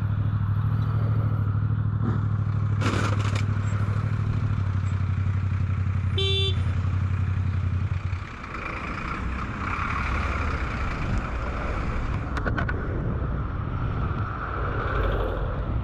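Motorcycle engine running at a steady cruise with wind rush, heard from the rider's helmet camera. A short horn beep sounds about six seconds in, and about two seconds later the engine note drops away, leaving mostly wind and traffic noise.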